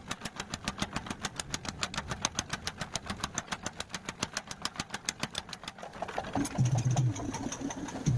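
Workshop machine running with a rapid, even knock, about six strokes a second. Near the end the knocking fades and a louder sound with a low hum takes over.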